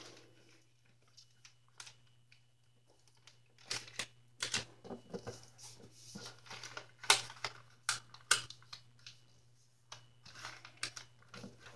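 Origami paper being folded and creased by hand on a wooden desk: scattered short crinkles, rustles and light taps, starting about four seconds in.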